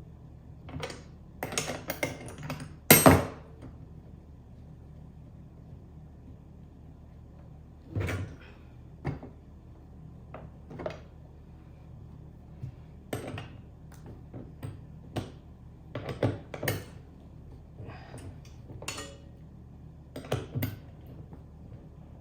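Scattered clinks and knocks of metal cart parts and bolts being handled and fitted during assembly of a dump cart, with one louder knock about three seconds in.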